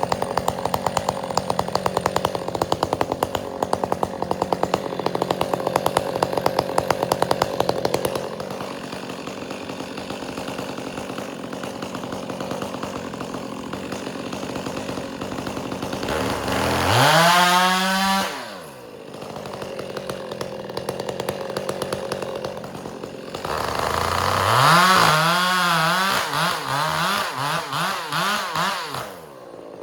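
Chainsaw bucking firewood: it runs under load at first, drops to a lower steady run, then is throttled up twice, its pitch rising and wavering as it cuts.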